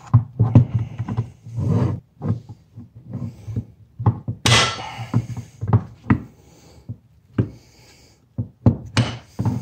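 Irregular knocks and clicks of metal drum-brake parts being handled and fitted by hand, with a short scraping noise about halfway through and again near the end, over a low steady hum.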